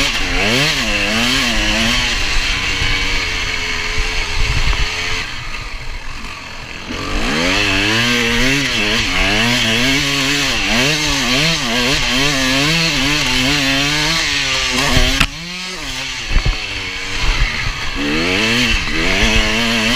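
KTM 250 EXC two-stroke dirt bike engine revving hard, its pitch rising and falling over and over as the rider works the throttle and shifts gears. The engine eases off for a couple of seconds about five seconds in. Near the end it drops away suddenly, followed by a few sharp knocks, before revving up again.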